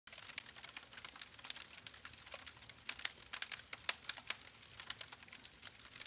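Campfire crackling: irregular sharp pops and ticks, several a second, over a soft hiss.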